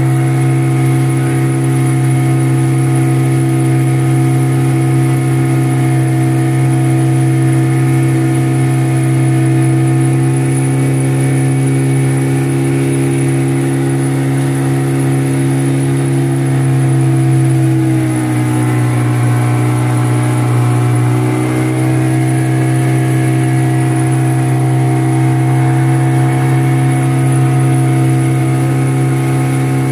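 Boat engine running steadily under way. Its pitch sags about two-thirds of the way through and then climbs back.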